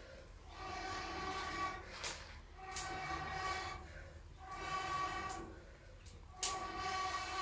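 Blowing through a metal blowpipe into the firebox of a wood-fired chulha to kindle the fire: four long puffs with short breaks for breath, each a breathy hiss with a hollow hooting tone. A sharp click comes near the end.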